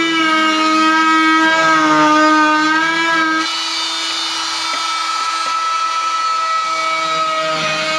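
Oscillating multi-tool running with a steady buzzing drone while its blade cuts along the base of a wall, the pitch wavering slightly with the load. About three and a half seconds in, the sound drops a little and its lowest hum falls away.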